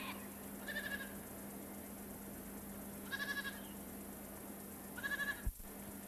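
An animal calling three times, each a short pulsing call about two seconds apart, over a steady low hum.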